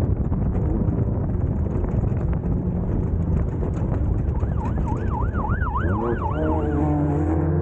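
Steady engine and drivetrain noise of a 1600-class off-road race car, with a siren-like warbling tone joining about four and a half seconds in. The tone rises and falls about twice a second for roughly two seconds.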